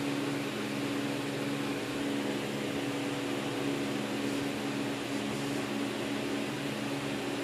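Steady low mechanical hum with a hiss over it, from a running household appliance.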